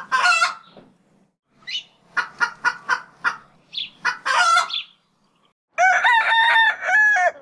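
Domestic fowl calling: a quick run of short clucking calls, then one long, stepped crow lasting about a second and a half near the end.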